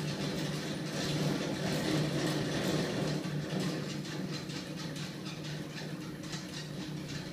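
Homemade magnet-engine prototype running, driven by a small electric motor: a steady hum with rapid, irregular clicking from its spinning parts.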